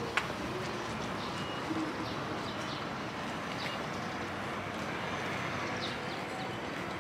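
Steady outdoor city background noise with small birds chirping now and then and a pigeon cooing low. There is a sharp click just after the start.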